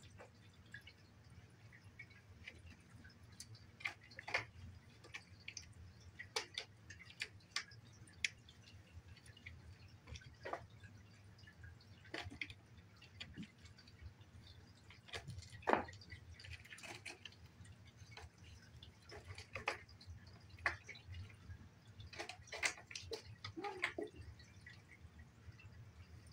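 Cats at play: irregular soft taps and clicks as a kitten bats and pounces on its toys, over a low steady hum.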